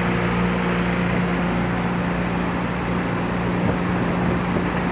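Outboard motor running steadily under throttle, a constant low drone, while pushing the boat against a strong river current and barely holding its place. Rushing, churning water around it.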